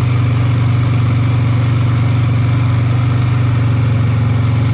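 ATV engine running at a steady speed while riding, a constant low drone with no revving.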